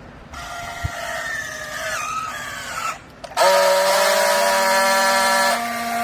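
Hydraulic baling press running under load with a whine that sags slightly in pitch. It stops briefly, then a louder, steady whine with hiss starts, holds for about two seconds and drops back.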